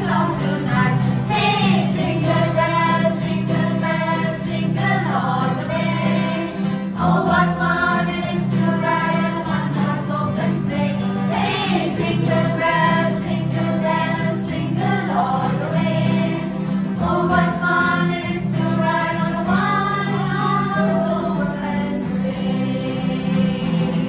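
A small group of children and women singing a Christmas song together, accompanied by strummed acoustic guitar.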